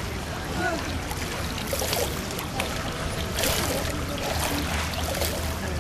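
Swimming-pool ambience: a steady wash of water noise, with a few brief light splashes from swimmers.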